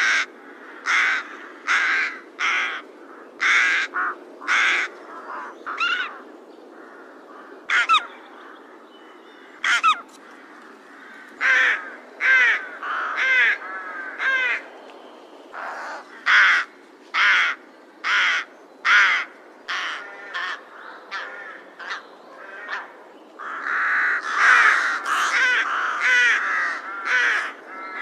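Crows cawing: a string of harsh caws at first about two a second, then more scattered single calls, and near the end several birds calling over one another.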